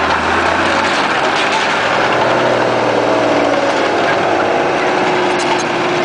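Tracked tank's engine running steadily as the vehicle moves, its pitch rising a little around the middle, with scattered clanks from the tracks.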